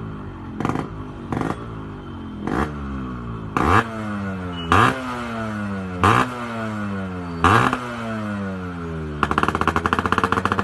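Yamaha RX-series two-stroke single-cylinder motorcycle engine having its throttle blipped over and over. Short sharp revs, each falls back to idle, then a burst of rapid crackling near the end.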